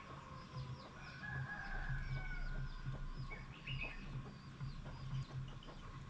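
A flock of sparrows chirping over and over in short, high notes while feeding on the ground, with chickens clucking among them.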